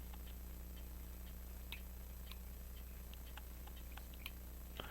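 Faint, irregular small metallic clicks of tools handling pocket-watch parts, over a steady low electrical hum.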